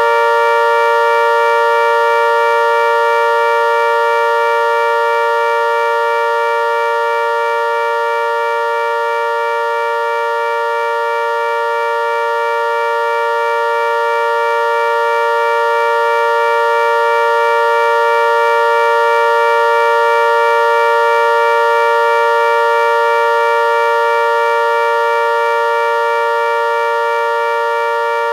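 Synthesized ACA Hurricane MKII civil defense siren sounding its steady alert signal: a held, unwavering chord of several pitches that slowly swells and fades in loudness, peaking about every twenty seconds.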